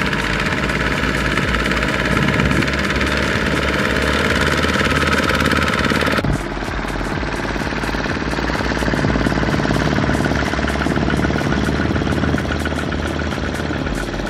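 Single-cylinder diesel engine of a Kubota two-wheel walking tractor running with a fast, even knock. The sound changes abruptly about six seconds in.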